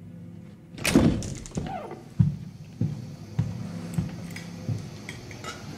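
A wooden door is opened: a loud clack of the latch about a second in, with a short falling squeak after it, followed by five heavy footsteps on a wooden floor about every 0.6 s.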